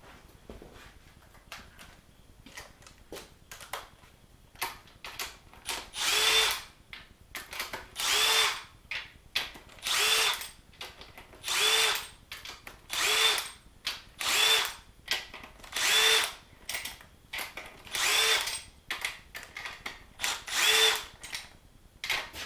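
Handheld power driver spinning bolts out of an LS V8 block in short bursts, about nine of them from roughly six seconds in. The motor winds down with a falling pitch after each bolt, and there are light clicks of handling before the first burst.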